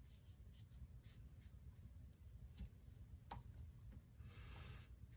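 Faint brush strokes on watercolor paper, painting fine leaf veins: a few light taps and a brief soft scratching stroke about four seconds in, otherwise near silence.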